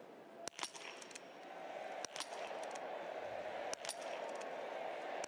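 Three .22 biathlon rifle shots, roughly a second and a half apart, each followed closely by a fainter click, as the targets are hit. An arena crowd's noise swells under them from about a second and a half in.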